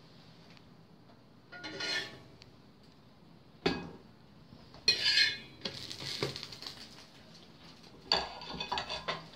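Dishes and bowls clattering and clinking in a kitchen: a short clatter, a sharp knock, the loudest clatter about halfway through, then a run of quick clinks near the end.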